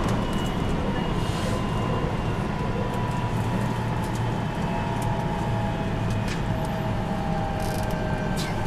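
JR 223 series 2000 electric train running, heard from just behind the cab: a steady rumble of wheels on rail with a thin motor whine that falls slightly in pitch, and a few short clacks over rail joints and points.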